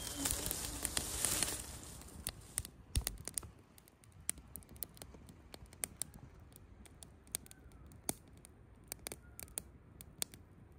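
Small campfire of dry twigs and pine needles crackling, with sharp, irregular snaps and pops scattered throughout. A louder steady hiss fills the first couple of seconds, then only the crackles remain over a quiet background.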